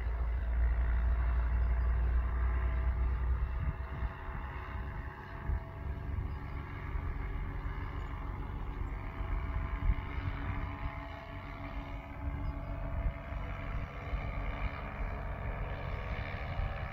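Paramotor engine and propeller droning steadily in the distance. Wind rumbles on the microphone, heaviest in the first few seconds and then gusting.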